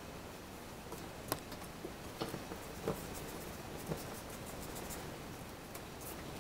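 Pencil and drawing tools scratching and rubbing on a sheet of drawing paper, in short quick strokes through the middle. A few light taps and knocks sound over it, the sharpest just over a second in.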